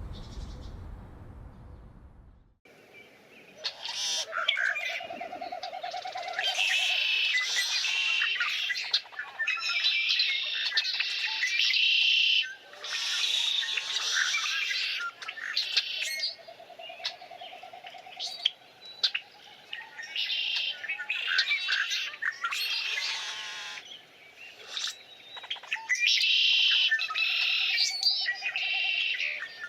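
Several songbirds singing and chirping over one another in dense, warbling phrases, with a lower trill that comes back about every ten seconds. It is preceded by a couple of seconds of low rumbling noise that fades and cuts off.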